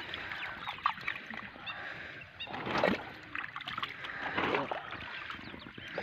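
Water sloshing and splashing as a fishing net full of live fish is gathered in shallow water, with fish flapping in the mesh in irregular splashes every second or two.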